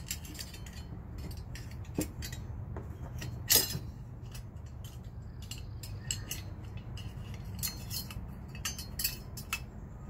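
Scattered small metal clicks and clinks from handling the sheet-metal furnace burner assembly while its spark and flame-sense electrode probe is fitted back into its clip, with one louder clack about three and a half seconds in.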